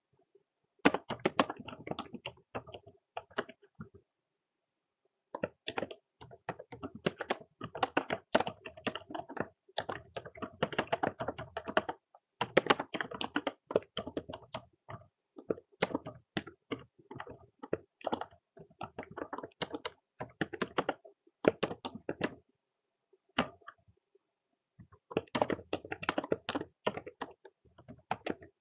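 Typing on a computer keyboard: quick runs of keystrokes broken by a few short pauses.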